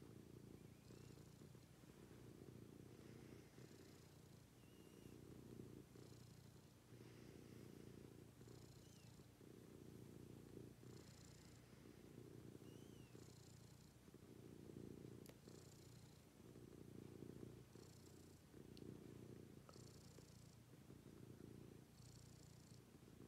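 Domestic cat purring softly and steadily, the purr swelling and fading with each breath about every two seconds.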